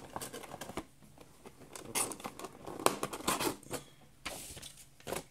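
Clear plastic packaging tray being handled and set into its cardboard box: a string of sharp plastic clicks and taps with short crinkling, and a brief scraping slide a little past four seconds in.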